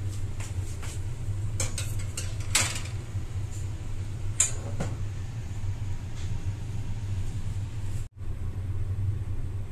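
Metal muffin tin being set onto the wire rack of a countertop oven: a run of metallic clatters and clicks, the loudest about two and a half seconds in, then a single sharp click a couple of seconds later, over a steady low hum.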